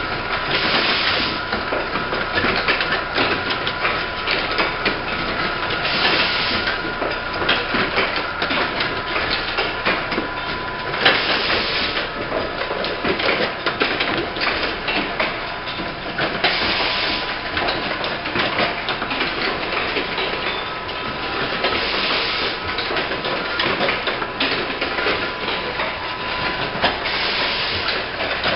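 Automatic insulin syringe assembly machine running: continuous rapid mechanical clicking and clatter, with a short hiss of pneumatic air exhaust about every five seconds and a thin steady tone underneath.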